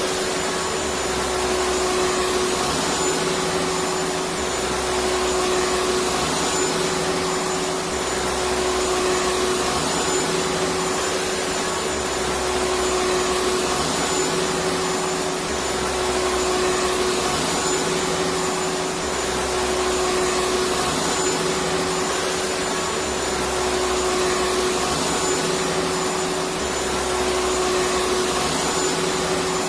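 Electric vacuum cleaner running continuously, a steady whooshing motor noise with a constant hum. A faint low throb repeats about every two seconds.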